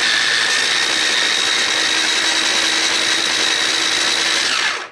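Moulinex electric mini chopper running steadily with a constant motor whine as it purées broccoli and cheese with a little cooking water. It is switched off near the end, and the whine falls away as the blade spins down.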